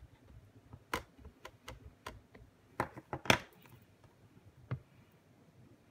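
Light taps and clicks of a stamp ink pad being dabbed onto a clear stamp and stamping tools handled on a desk, about eight irregular taps with the loudest clack a little over three seconds in.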